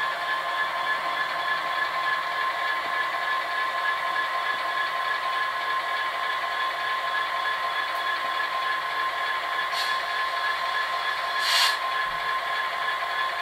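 Class 66 diesel-electric locomotive engine sound, the EMD two-stroke V12 recreated by a DCC sound decoder and played through the model's small speakers, running steadily with a thin, bass-light tone. A brief hiss comes near the end, with a fainter one a couple of seconds before it.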